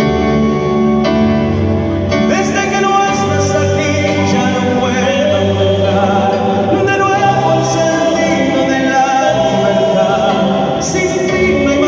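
Live band playing a song, with voices singing over guitar accompaniment; the singing comes in about two seconds in, with a few cymbal-like accents.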